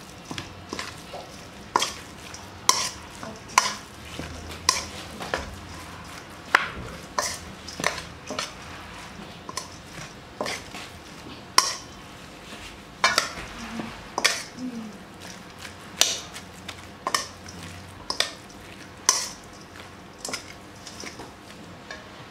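Metal spoon stirring minced pork and glass noodles in a stainless steel bowl: sharp clinks and scrapes of spoon on bowl at an uneven pace, roughly one a second, over a soft mixing noise.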